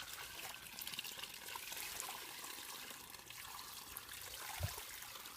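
Water trickling and pouring into a small garden model dam made of soil, running through it as it floods: a steady light hiss with small scattered drips and splashes.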